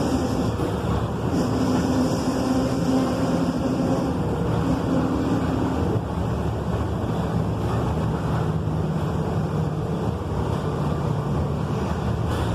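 Volkswagen 17.230 EOD truck's diesel engine running steadily, its note dropping about six seconds in, over a constant rushing noise.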